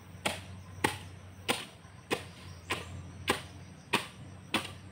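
A digging tool chopping into the ground with eight steady, evenly spaced blows, a little under two a second, cutting through soil and a tree root.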